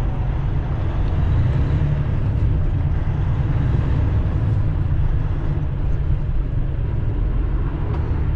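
Semi truck's engine running with a steady low rumble, heard from inside the cab in slow traffic.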